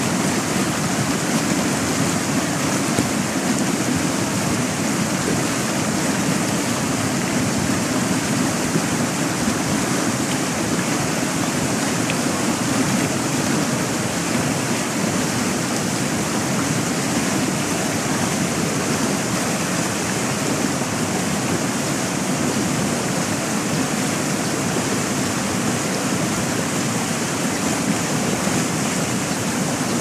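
Fast-flowing stream rushing over rocks in whitewater rapids, a steady, unbroken wash of water noise.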